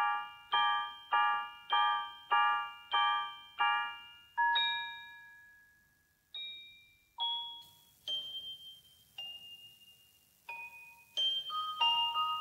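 Ballet music on a bell-like tuned instrument: a high chord struck again and again, a little under two a second, then a long note left to fade about four seconds in. After a short pause, slow single notes follow and quicken near the end.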